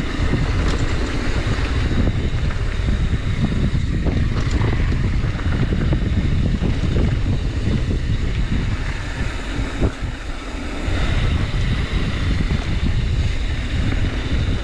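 Loud, steady rushing noise with heavy wind rumble on the microphone, dipping briefly about two-thirds of the way through.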